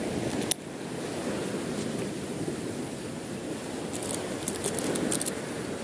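Steady wind and water noise with gear being handled: one sharp click about half a second in, then a run of light clicks between about four and five seconds in.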